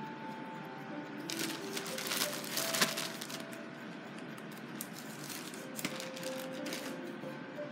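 Crinkling, rustling handling noise in two spells, the first about a second in and lasting about two seconds, the second shorter, near six seconds in. Soft ambient music from a radio plays underneath, as held tones that shift in pitch.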